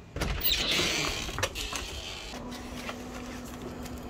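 Disposable aluminium foil pan rustling and crinkling as it is handled and set down, with a few light knocks, loudest in the first second and a half. A steady low hum comes in about two seconds in.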